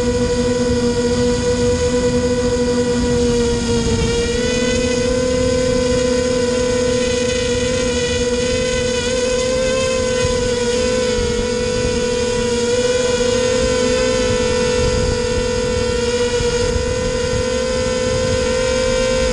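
Racing quadcopter's motors and propellers whining steadily right beside the on-board camera, the pitch wavering slightly as the throttle changes in flight.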